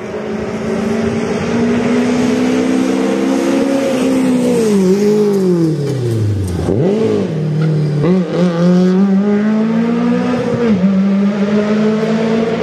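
Rally car engine driven hard, its revs climbing slowly. The pitch falls steeply several times around the middle, then climbs again, with another sharp drop near the end.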